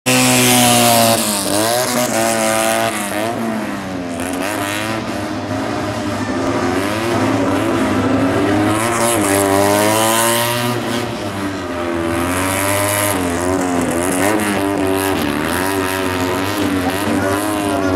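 Tuned classic Fiat 500's air-cooled two-cylinder engine revving hard, its pitch repeatedly rising and falling as the car accelerates and brakes between cones on a gymkhana course.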